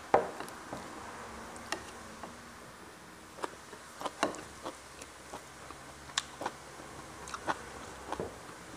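Close-up eating sounds of a person eating fried catfish and rice by hand: chewing, lip smacks and soft clicks of fingers and food against the plate, coming irregularly, over a faint steady low hum.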